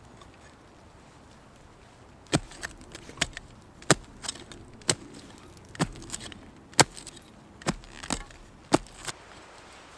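Folding shovel chopping into soil while digging a hole, as a series of sharp strikes about once a second with smaller scrapes and knocks between them. The strikes begin about two seconds in.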